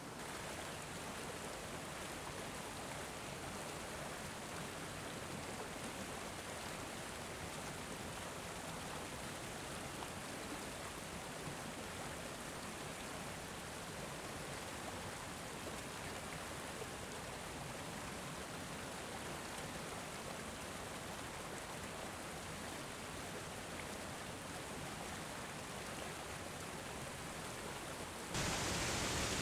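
Small waterfall splashing over rocks into a pool: a steady, even rush of water. About a second before the end it jumps louder and brighter.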